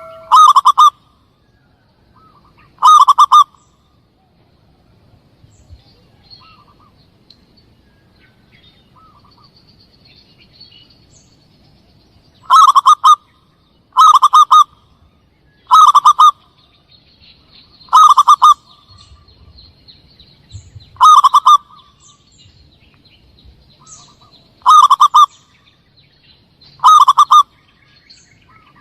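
Zebra dove (perkutut) cooing call played as a hunting lure: nine short, stuttering coos of about half a second each, loud and repeated at irregular gaps. Faint high chirping sounds between them.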